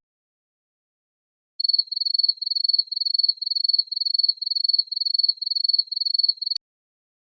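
Cricket chirping: a high trill broken into about two chirps a second, starting after a second and a half of silence and cutting off suddenly with a click. This is the stock 'crickets' effect that editors use for an awkward silence.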